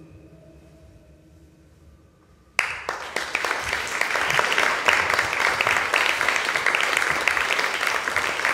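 The last faint tones of a slowed-down cricket recording fade away, then about two and a half seconds in an audience starts applauding, with many hands clapping steadily.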